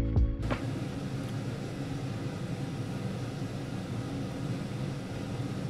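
Background music stops abruptly in the first half second, leaving a steady low hum and hiss of room noise.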